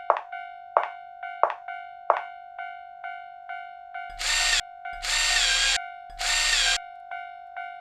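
Japanese railroad crossing warning bell ringing its repeated "kan-kan", strikes alternating loud and soft about three times a second over a steady ringing tone. About halfway through, three loud buzzy blasts cut in over the bell.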